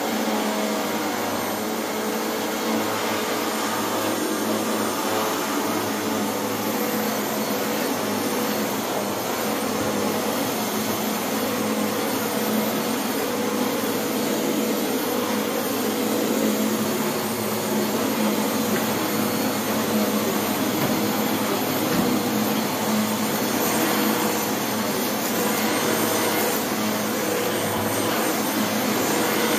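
Upright vacuum cleaner running steadily: an even rushing noise with a steady hum underneath.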